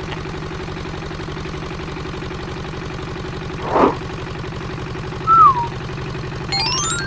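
A steady engine-like idling hum with an even, rapid pulse. A brief whoosh comes about four seconds in, a short falling whistle-like tone a little after five seconds, and a rising stepped run of electronic tones near the end.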